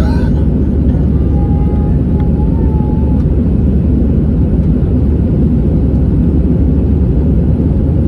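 Airbus A320 cabin noise heard from a window seat: a steady, loud low roar of jet engines and rushing air, typical of the climb after takeoff.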